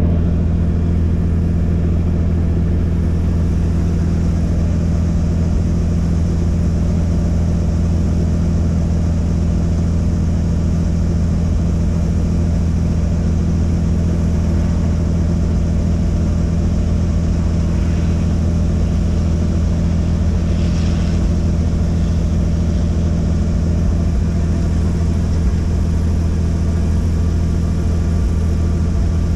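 Helicopter's engine and rotor running steadily: a loud, even drone with a strong low hum that does not change.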